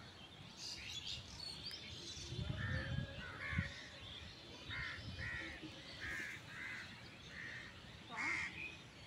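Crows cawing in a series of short calls, with faint chirps of smaller birds early on and a brief low rumble a few seconds in.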